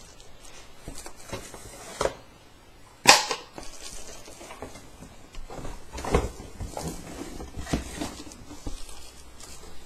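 Unpacking noises: rustling packaging and handling knocks while a speaker is lifted out of its box, with one sharp, loud knock about three seconds in.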